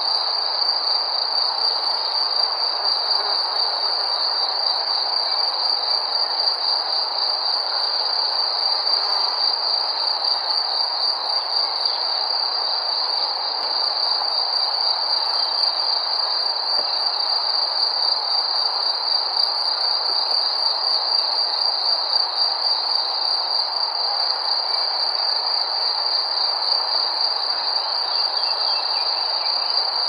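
Crickets chirping in a dense, continuous chorus: a steady high, fast-pulsing trill over an even background hiss.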